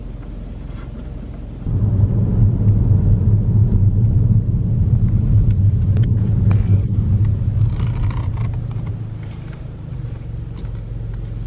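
Low, steady car rumble that starts suddenly about two seconds in, stays loud, and eases off a little after eight seconds in.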